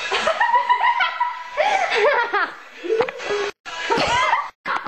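Girls laughing hard in high-pitched bouts.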